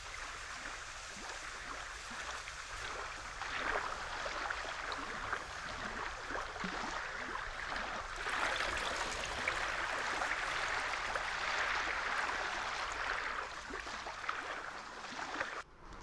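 Water splashing and streaming as a moose feeds in a shallow pond, lifting its head from the water with water pouring off its muzzle. The splashing grows louder about halfway through and drops away suddenly just before the end.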